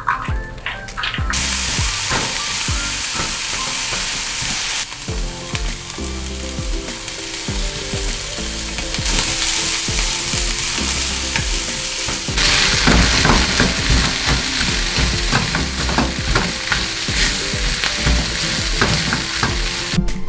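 Diced carrot, onion, green pepper and sliced sausage sizzling in a hot frying pan over a gas burner as they are stir-fried and turned with a spatula. The sizzle starts about a second in, when the food hits the oiled pan.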